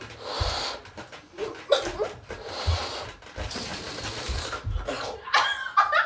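A person blowing hard, breath after breath, into a rubber balloon to inflate it, with dull thumps from someone jumping close by. Laughter near the end.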